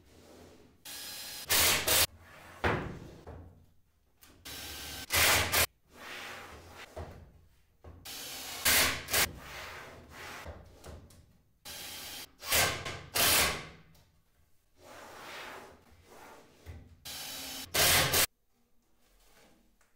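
A series of short, irregular knocks and scrapes as a wooden drawer box and its panels are handled and set down on a workbench, several coming in quick pairs.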